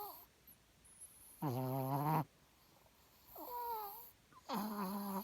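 Pet dog vocalizing three times: a low drawn-out call, then a higher, falling whine, then another low drawn-out call.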